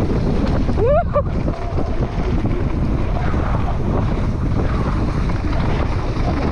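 Wind buffeting the microphone over the rumble and rattle of a mountain bike's tyres and frame on a loose, rocky trail at speed. A short rising tone cuts in about a second in.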